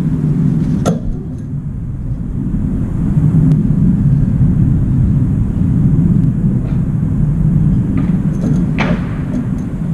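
A steady low rumble, with a few short sharp taps as a crow lands and shifts on the metal balcony railing: one about a second in and a couple more near the end. No cawing.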